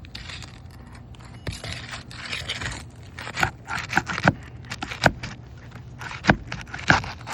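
Scraping across brittle, aged 3-tab asphalt shingles as a stuck shingle is worked loose, with several sharp cracks and clicks in the second half.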